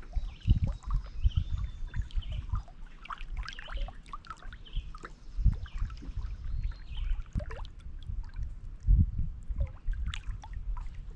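Lake waves lapping and splashing against shoreline rocks, in irregular sloshes about a second or so apart.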